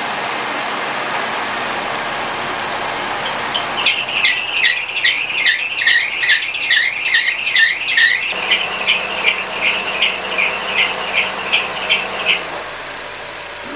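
2005 Honda Accord Euro 2.4 VTEC engine running, then its serpentine accessory belt starts squealing about four seconds in: a high chirping squeal pulsing about three times a second, stopping a little before the end. The belt is being forced across its pulleys when the air conditioner compressor loads it; the owner thinks the misaligned belt is slipping, with a worn, possibly out-of-round idler pulley.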